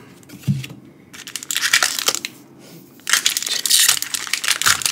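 Crinkling and crumpling of Pokémon booster-pack wrappers and packaging being handled, in two spells: about a second and a half in, and again from about three seconds in.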